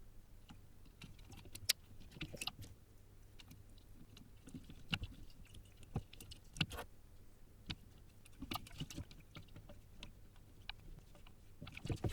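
Faint, scattered light clicks and small rustles from handling tiny parts at a workbench: through-hole resistors being fitted into a circuit board.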